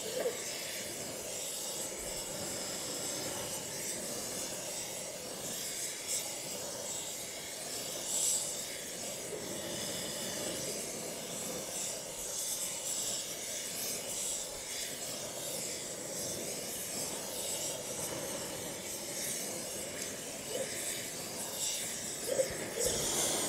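Oxy-propane torch flame hissing steadily while it preheats a cast iron casting before welding.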